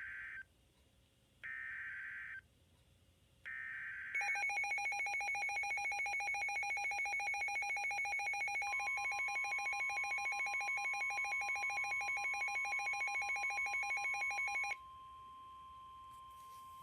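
Emergency Alert System signal: the chirping data-burst tones of the alert header, three short bursts about a second apart, then a harsh, rapidly pulsing alert tone for about ten seconds. Partway through, a steady high single tone joins in and carries on alone after the pulsing stops: the weather-alert tone that comes before a warning message.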